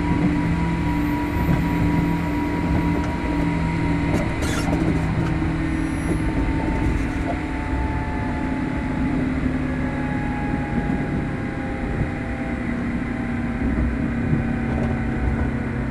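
Inside a JR Kyushu 103 series (1500 subseries) electric train car, heard over track rumble: the traction motor and gear whine is steady, several tones together, slowly dropping in pitch as the train loses speed. A brief rattle comes about four and a half seconds in.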